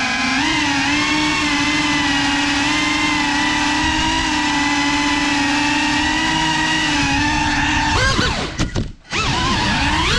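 Small FPV quadcopter's brushless motors and propellers whining steadily at cruising throttle. Near the end the pitch swings up and down, drops away almost to nothing as the throttle is chopped, then climbs back.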